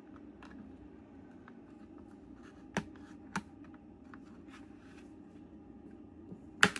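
Plastic opening tool prying around the edge of a MacBook Pro's aluminium bottom cover as it is separated from the chassis: faint scraping and handling, two sharp clicks about three seconds in and a louder click near the end.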